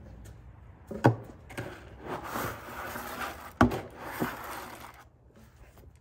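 Two sharp knocks about two and a half seconds apart, with rustling and scraping between them and a lighter knock just after the second, as a feed bucket and rubber tub are handled.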